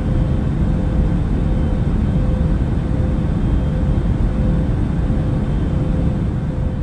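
Steady low rumble with a faint constant hum, beginning to fade out near the end.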